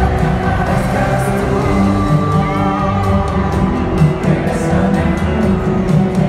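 Live rock band playing with a lead vocal, heard from the stands of a large arena, loud and echoing.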